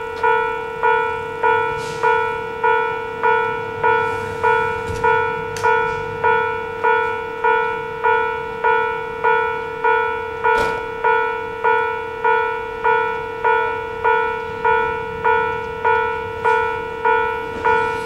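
Japanese railway level-crossing alarm ringing its electronic bell, a steady repeated clang a little under twice a second that warns of an approaching train. A few short sharp clicks sound over it.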